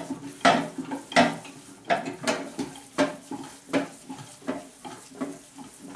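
Hand-cranked stainless steel meat mixer being turned, its paddles churning ground pork with seasoning and water. It gives a regular metallic clank about three times every two seconds.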